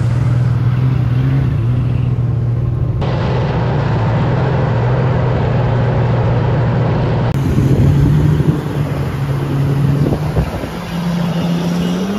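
Sea-Doo jet ski engine running hard across the water, a steady drone with water rushing and spraying under the hull. The engine note rises near the end as the rider opens the throttle.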